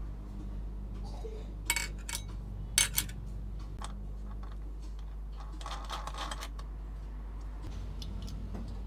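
Small hard parts clinking and knocking as they are handled: a few sharp clicks in the first seconds and a short rattling clatter near the middle, over a steady low hum.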